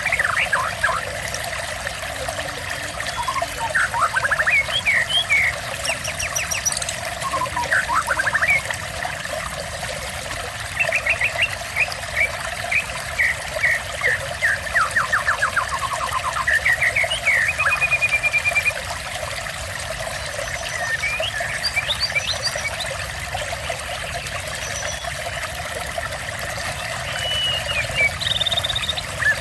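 Water trickling and pouring steadily, with a small songbird chirping over it in quick runs of rapid notes and occasional high thin whistles.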